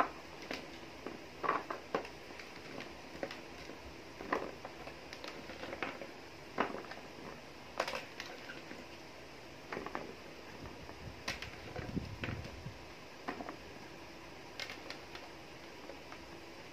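Peeled single-clove garlic bulbs being picked off a stainless steel tray and dropped into a plastic food box: a string of irregular light taps and clicks.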